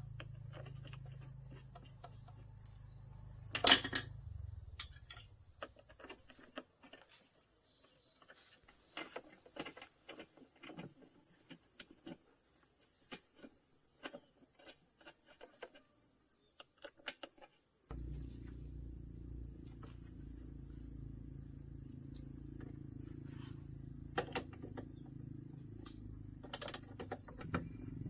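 Steady high-pitched insect chirring, like crickets, over scattered small clicks and taps with one sharp louder click about four seconds in. A low hum fades out after a few seconds and cuts back in about two-thirds of the way through.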